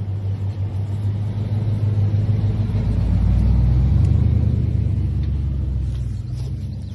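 Low rumble of a motor vehicle with a steady engine hum, swelling to its loudest about four seconds in and then fading, as when a car or truck passes close by.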